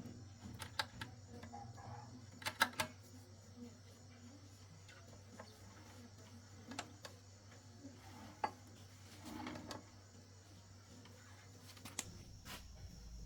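Scattered light clicks and taps, a couple of them in quick pairs, over a faint steady low hum.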